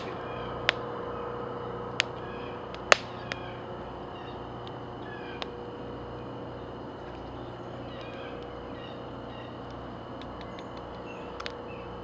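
Campfire crackling with a few sharp pops, the loudest about three seconds in, over a steady background hum and faint high chirps.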